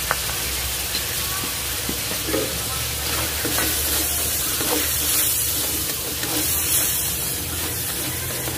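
Shrimp sizzling as they are sautéed in a pan, with the scrape and clack of the stirring utensil against the pan now and then.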